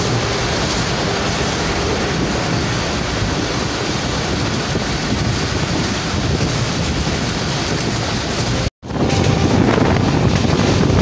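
Passenger train running at speed, heard from an open carriage window: a steady rumble of wheels on rail mixed with wind rushing over the microphone. The sound cuts out for a moment about nine seconds in, then resumes a little louder.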